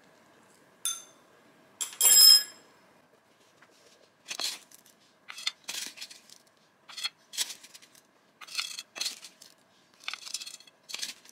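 Gritty potting mix being scooped and tipped into a glazed pot around a succulent's roots, heard as a string of short scraping rustles from about four seconds in. Before that, a sharp clink about a second in and a louder ringing clatter about two seconds in, from hard tools or containers knocking together.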